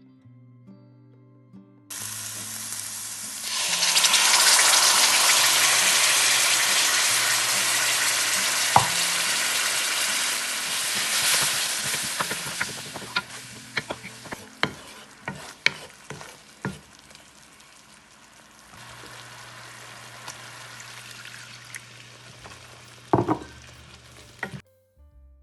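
Food frying in a hot pan for a Thai Panang curry. A loud sizzle starts about four seconds in and dies down over the next ten seconds, then a utensil clicks and taps against the pan as it is stirred. Soft background music sits underneath.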